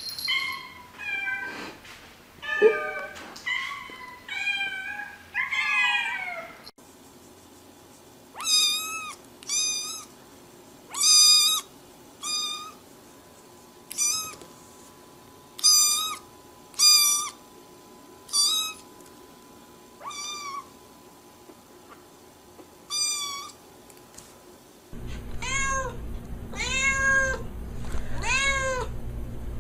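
Domestic cats meowing. First a few short meows, then a black kitten giving about a dozen separate high-pitched mews. From about 25 seconds in, a white calico cat meows over and over, each meow rising and falling, over a low steady hum.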